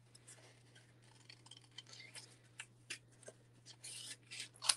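Small craft scissors snipping around a stamped image in cardstock: short, irregular snips, growing a little louder near the end with one sharper snip at the close.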